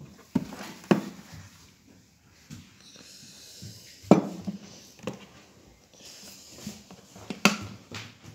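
Kitchenware being handled and set down on a wooden table: several separate knocks and clatters, the loudest about four seconds in as a glass jar with a plastic lid is put down, with a soft rustle of plastic between them.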